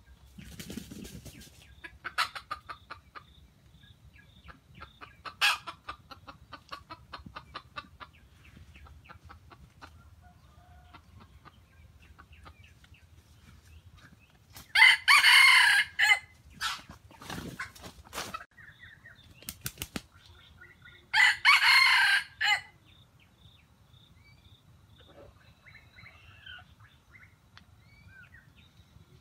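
Red junglefowl rooster crowing twice, each crow about a second and a half long and some six seconds apart, with softer clucking calls in the first several seconds.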